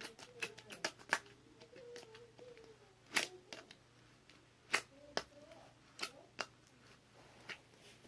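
Slime being pushed through a funnel into a balloon: irregular sharp wet clicks and pops, with several louder ones.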